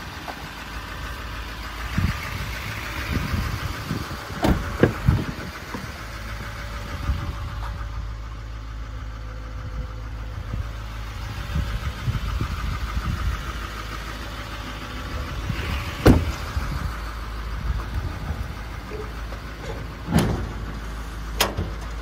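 A 6.6-litre Duramax V8 diesel idling steadily, with a handful of sharp knocks and thumps from truck doors and toolbox compartment lids being handled, the loudest about 16 seconds in.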